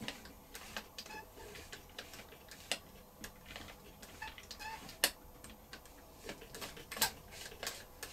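Scattered small metallic clicks and taps from the underside mechanism of a Singer 201K sewing machine as it is handled and oiled, with a few sharper clicks, the loudest about five seconds in.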